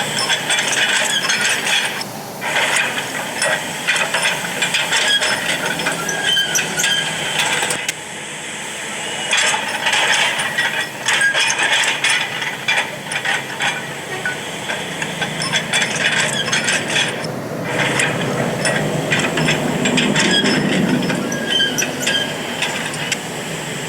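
Hitachi excavator's steel tracks clanking and rattling in a dense run of clicks as it climbs a steep slope, with the engine running under load underneath.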